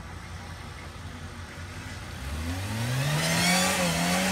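Jeep engine running low and steady, then revving up from about two seconds in and held at high revs as the Jeep climbs a steep bank under load.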